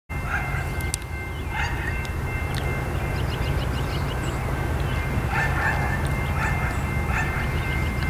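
Birds calling: a few short calls in clusters near the start and again about five to seven seconds in, with a quick run of higher chirps around three seconds in, over a steady low rumble.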